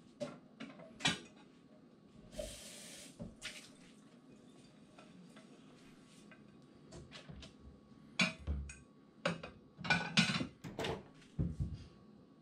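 Dishes and cutlery clinking and knocking at a kitchen sink as they are washed and dried by hand, with a short rush of water about two and a half seconds in. The clinks come sparsely at first, then thicker and louder near the end.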